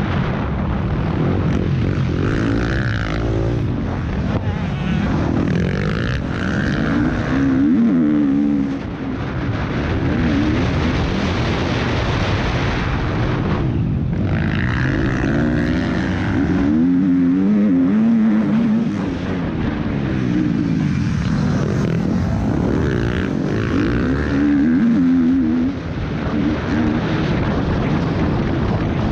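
Motocross bike engine heard from on board, revving hard and shifting, its pitch climbing and dropping again and again through corners and straights.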